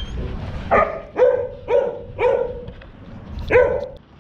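A dog barking five times: four quick barks about half a second apart, then one more after a pause of about a second.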